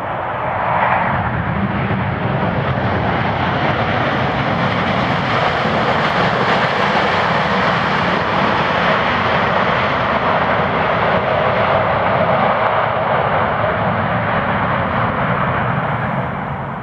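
Jet engine noise from a Boeing 787-8's Rolls-Royce Trent 1000 engines as the airliner rolls out on the runway after touchdown. The steady noise swells about two seconds in, holds, and fades near the end as the aircraft moves away.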